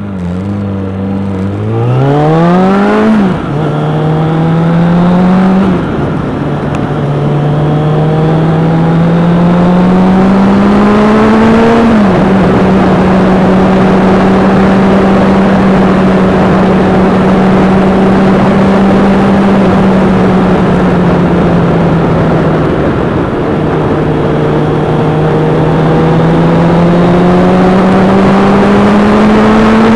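Vehicle engine pulling through the gears: its pitch climbs and drops at a gear change three times in the first twelve seconds, holds steady while cruising, falls back a little after twenty seconds and climbs again near the end. A dense rush of wind and road noise runs under it.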